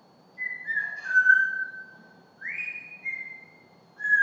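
African grey parrot whistling: a clear note that steps down and is held for about a second and a half, then a second note that sweeps up and holds, with a third starting near the end.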